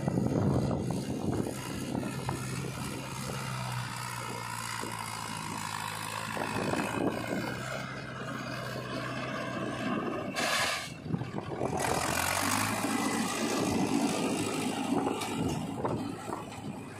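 Mahindra Yuvo 575 DI tractor's diesel engine running steadily while it pulls a loaded soil trolley. A short burst of hiss comes about ten seconds in, and the engine note changes just after.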